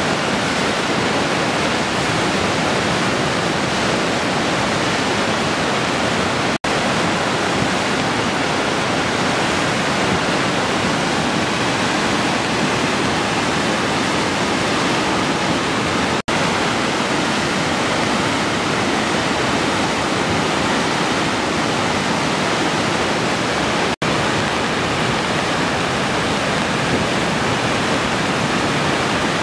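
Swollen, silt-laden river in flood rushing past in a steady, loud roar of churning water. Three times the sound drops out for a split second.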